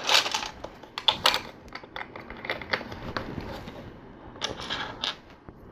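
Plastic LEGO bricks clicking and clattering as pieces are picked up, handled and pressed together: a quick, irregular run of sharp clicks, busiest at the start, about a second in, and again near the end.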